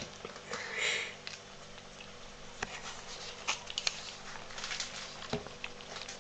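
Siamese kitten licking and mouthing greasy fingers: faint wet licks and sniffs with small scattered clicks.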